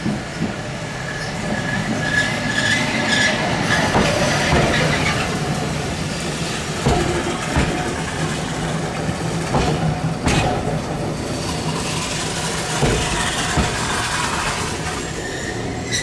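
A Randen (Keifuku Electric Railroad) tram car running at low speed in the station, its motors and wheels rumbling steadily, with knocks and clicks from the wheels on the rails. A high wheel squeal comes in during the first few seconds.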